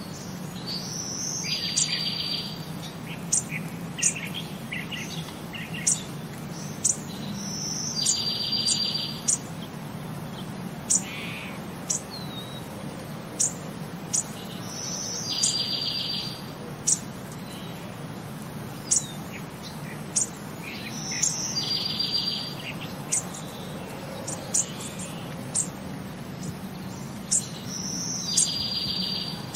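Bird song: a short whistled note followed by a rapid high trill, repeating about every seven seconds, with sharp single chirps in between, over a steady low hum.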